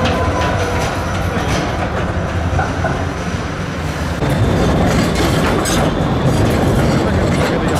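Trams running on street track: an older tram pulling away, then a Pesa low-floor tram passing close by, louder from about four seconds in. Its wheels clack over rail joints and points with a steady rumble.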